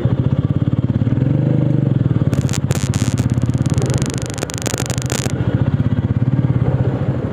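Royal Enfield motorcycle engine running at low riding speed with an even beat, picking up a little about a second in. A stretch of hissing noise lasts from about two to five seconds in.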